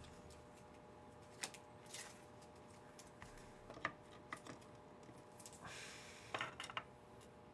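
Faint scattered clicks and a soft rustle of trading cards being handled and slid off a stack one by one.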